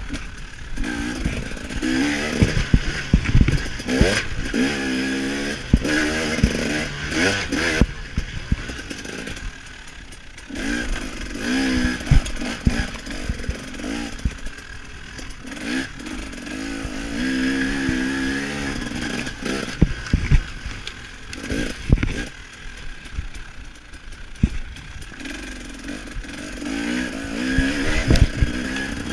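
KTM 300 XC-W two-stroke dirt bike engine revving up and dropping back over and over as it is raced round a motocross track, with frequent knocks and clatter from the bike over bumps.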